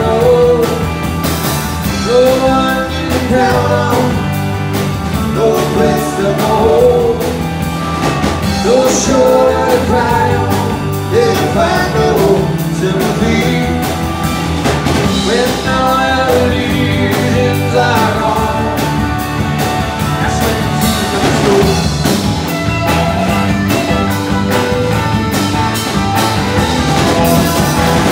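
Live rock band playing: electric guitars, bass guitar and drum kit, loud and continuous, with a gliding melodic line over the top.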